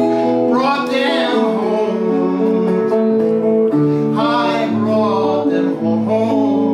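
A song sung to acoustic guitar: steady guitar chords under drawn-out sung phrases, one starting about half a second in and another at about four seconds.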